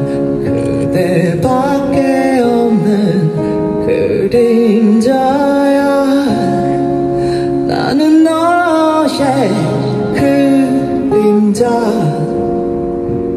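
Live pop-rock performance: a male singer sings into a handheld microphone over band accompaniment, with a wavering held note about eight seconds in.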